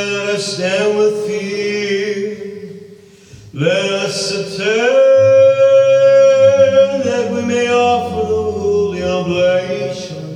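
A man's voice chanting unaccompanied, Orthodox liturgical chant, in long held phrases. It breaks off about three seconds in, resumes with a long sustained note, and a lower steady note sounds beneath it for a few seconds in the middle.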